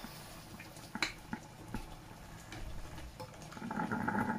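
A few light clicks and taps, then a spoon stirring thick coconut milk into chicken curry in a nonstick frying pan, getting louder near the end.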